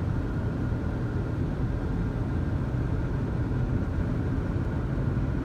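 Steady low rumble of a car driving, engine and tyre noise heard from inside the cabin on a snow-covered road.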